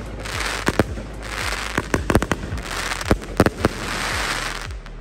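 Aerial firework cake firing a rapid series of sharp reports, several a second, with crackling hiss from the bursting stars swelling between them.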